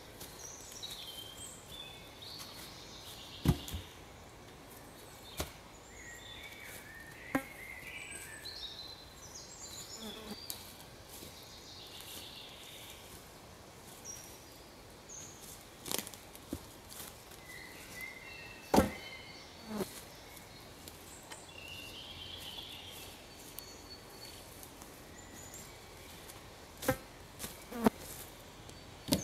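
Dead wooden poles and branches knocking and clattering as they are broken, dragged and dropped: about eight sharp irregular knocks. Birds chirp in the background.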